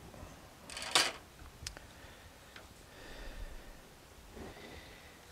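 Small handling sounds of wires and tools: a sharp clatter about a second in, then a few light clicks and soft rustling.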